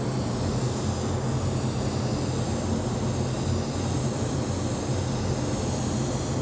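Steady hum of a paint spray booth's exhaust fan, with the even hiss of an airbrush spraying candy paint onto a clear polycarbonate panel. The low hum is the loudest part.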